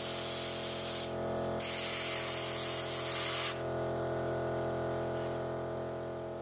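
Spray gun hissing as it sprays coating onto a wall, in two bursts: the first stops about a second in, the second starts half a second later and cuts off at about three and a half seconds. A steady motor hum runs underneath and fades toward the end.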